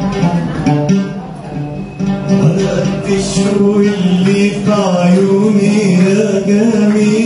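Oud played solo in Arabic style, plucked notes over a steady low drone; a man's singing voice joins in about two seconds in.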